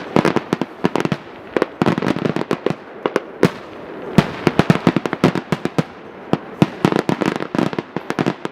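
Fireworks going off in a rapid barrage: sharp bangs and cracks, irregular and several a second.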